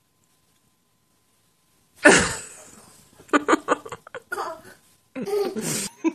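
Near silence, then a sudden loud vocal outburst about two seconds in, followed by short bursts of laughter and voice sounds.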